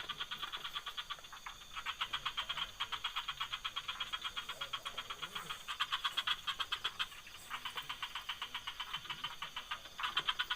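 Night chorus of frogs: a rapid pulsing call, about ten pulses a second, repeating in long runs with short breaks, over a steady faint high insect whine.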